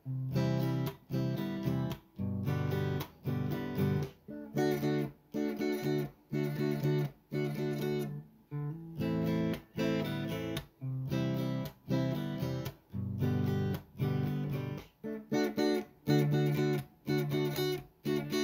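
Background music: rhythmic strummed acoustic guitar chords.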